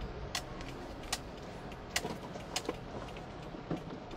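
Faint engine and road noise inside a car's cabin as it rolls slowly, with a handful of sharp, irregularly spaced clicks.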